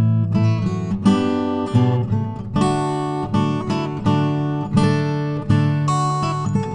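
Background music: strummed acoustic guitar, with a new chord about every half second.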